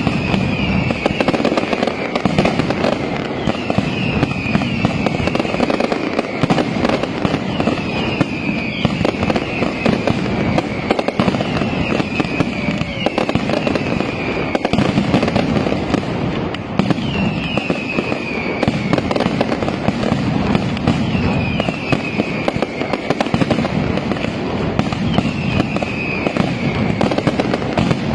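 Night-time mascletà fireworks: an unbroken, dense barrage of firecracker bangs. Over it, a high whistle falling in pitch comes back roughly every two seconds.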